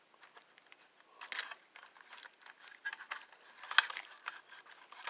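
Scattered light clicks and small knocks of an American Flyer 564 toy-train tender being handled: its reverse switch worked by hand, then the tender turned upright and set on the table, with the sharpest click a little before four seconds in.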